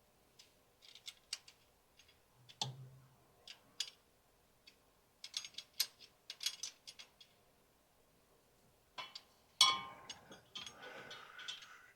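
Scattered metallic clicks and taps of hand tools and a long bolt being fitted through the alternator mounting, with a louder scraping rattle near the end.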